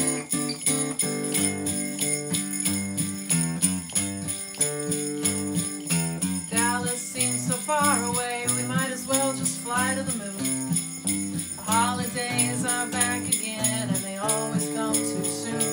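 Acoustic guitar strumming chords with a hand-shaken sleigh bell jingling in steady time. From about six seconds in, a voice carries a melody over them.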